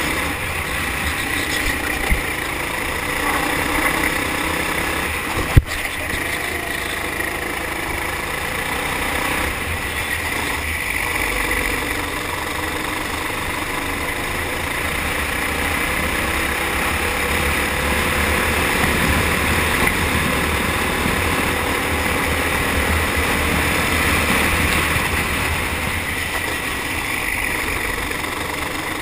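Four-stroke kart engine running continuously under power, heard from on board the kart while lapping. A small click about two seconds in and a sharp, loud knock about five and a half seconds in.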